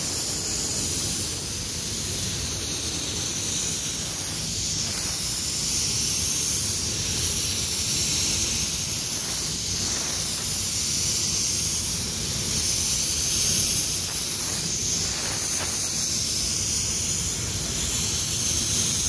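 Gravity-feed automotive spray gun hissing steadily as compressed air atomises clear coat onto a car bonnet.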